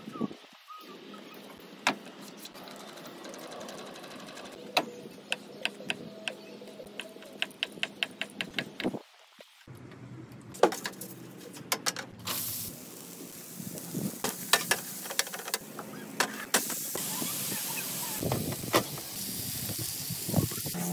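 Sharp knife taps on a wooden cutting board, about two to three a second, then from about halfway a steady sizzle of food frying on a Blackstone E-Series electric griddle, with scattered clicks of the cooking tools over it.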